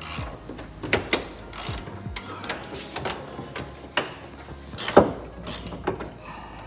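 Hand tools clicking and clanking against metal parts of a car's front end in irregular knocks, the loudest about five seconds in.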